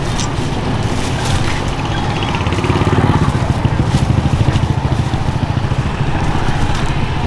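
Motor scooter engine passing close by, its low rumble swelling about halfway through and then easing, over the steady noise of a street market.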